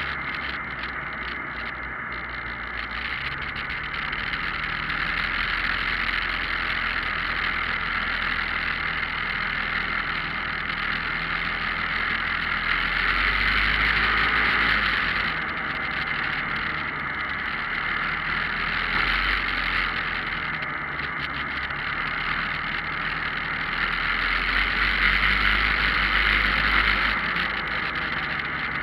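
Steady running noise heard from a camera mounted on a moving vehicle: engine, tyres and wind in one continuous rush, growing louder twice, about halfway through and again near the end.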